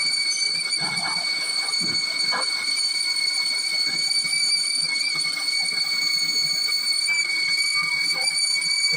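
Lathe boring tool cutting inside a bored hole with a steady, high-pitched squeal, the ringing typical of a boring bar chattering in the cut.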